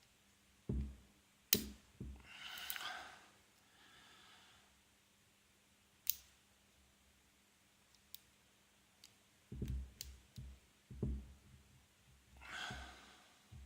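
Faint clicks and taps of a lock pick and tension wrench working the pins of a Yale LP300 six-pin padlock, with a few low handling knocks around ten to eleven seconds in. Two breathy sighs, one about two and a half seconds in and one near the end.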